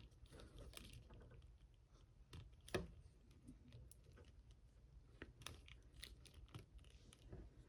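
Quiet handling of a plastic action figure and its accessories: scattered faint clicks and taps, with one louder click a little under three seconds in.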